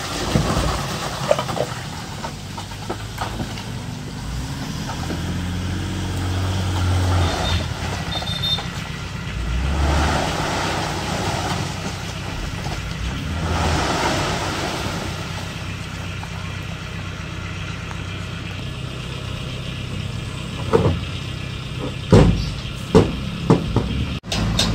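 Diesel engines of heavy earthmoving machinery running and working under changing load, with two louder swells about ten and fourteen seconds in. Several sharp knocks near the end.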